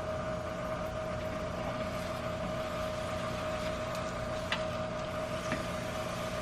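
Steady machine hum with one held tone, over the soft sizzle of a corn tortilla frying in oil in a pan. Two light clicks come in the second half.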